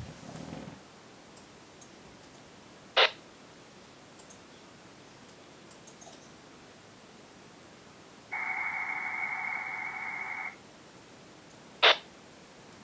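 A Rattlegram digital text burst comes in over a Quansheng handheld radio's speaker. It is about two seconds of dense, even, buzzy data tone: the CQ message being received. A short loud pop sounds about three seconds in, and another comes shortly after the burst ends.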